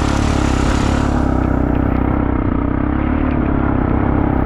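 ATV engine running steadily under way. A hiss above it dies away about a second and a half in.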